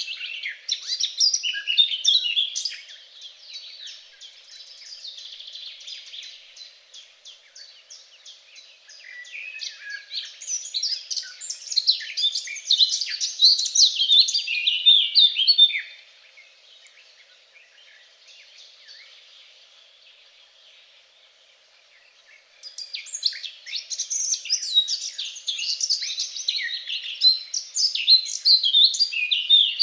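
Songbirds singing in long, rapid, twittering phrases of several seconds each, with quieter stretches of softer calls between the bursts.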